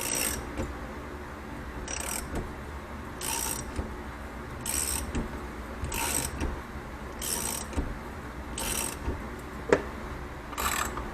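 Half-inch ratchet wrench clicking as it cranks the screws of a coil-spring compressor down on a shock's coil spring, one short ratcheting stroke about every second and a half.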